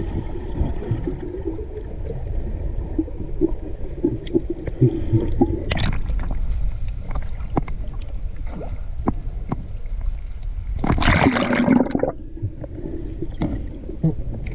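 Sea water heard through a diver's camera underwater: a muffled low rumble with gurgling and small clicks. A splash comes about six seconds in as it breaks the surface, and a rush of splashing about eleven seconds in as it goes back under, after which the sound is muffled again.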